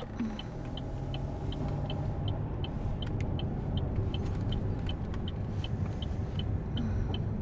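Car turn-signal indicator ticking evenly, about three ticks a second, inside the cabin as the car turns at an intersection. Under it is a steady low road and drive rumble that builds over the first couple of seconds as the car pulls away.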